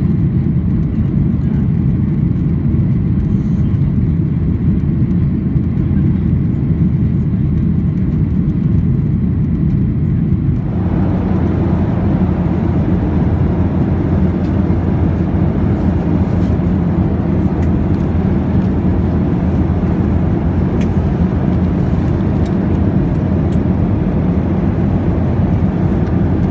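Boeing 737-800 cabin noise in flight: a steady rumble from the engines and rushing air. About ten seconds in it suddenly turns brighter and more hissy, then holds steady.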